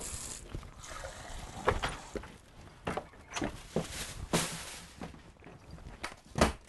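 Scattered knocks and clatter of people moving about a kitchen: the back door opening, footsteps and a glass being handled, with a couple of louder thumps near the end.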